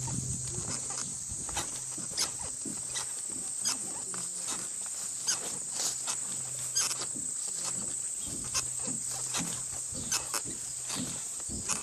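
Farm animals moving about and feeding in their pens: scattered irregular clicks and knocks over a steady high-pitched buzz.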